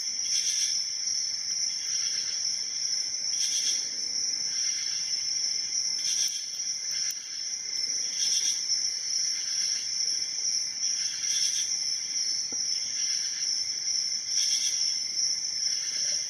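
Steady high-pitched chirping of insects, swelling every few seconds.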